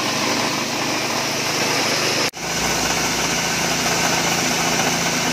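Small petrol engine driving a portable dry-coffee huller, running steadily under load. The sound breaks off for an instant a little over two seconds in, then carries on with a deeper hum.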